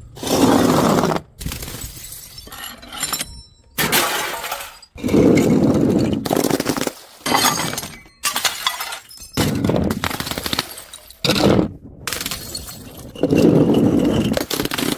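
Glass bottles smashing and shattering one after another, each a loud crash followed by crunching and tinkling of shards. The sounds are spliced together with sudden cuts between them.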